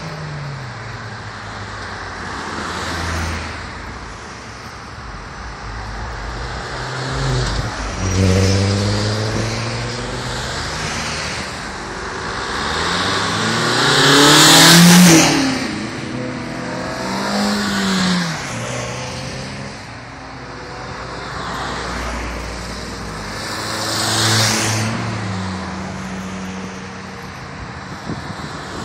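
A line of cars driving past one after another, each engine and exhaust swelling and fading as it passes. The loudest car goes by about halfway through, its pitch sweeping as it passes, and another engine revs up and back down a few seconds later.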